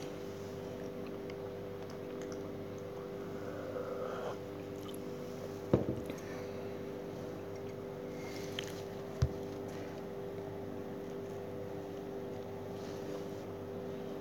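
A steady hum of room noise, with two brief faint clicks, one about six seconds in and another a few seconds later.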